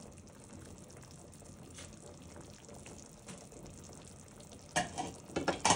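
Pot of vegetables and meat in broth simmering on a gas burner, a steady low bubbling hiss with a few faint ticks. Near the end come several sharp clatters and knocks of a utensil against the pot.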